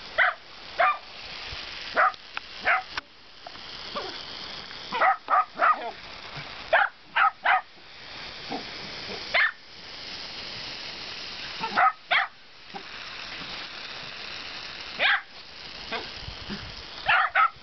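Shetland Sheepdogs barking in short, sharp, high-pitched bursts, often several in quick succession. Between the barks, the hiss of a lawn sprinkler's water jet swells and fades.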